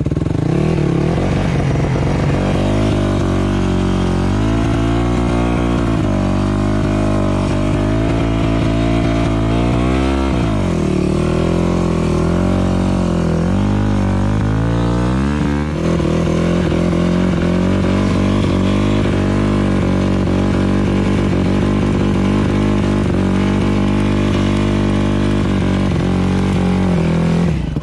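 Yamaha four-stroke single-cylinder enduro bike engine running hard. Its revs dip and climb several times in the first half, then hold steady, and it cuts off suddenly at the very end.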